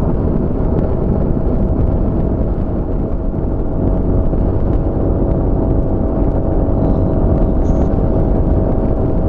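Honda Forza MF15 scooter's single-cylinder engine running steadily at cruising speed, with wind noise on the microphone.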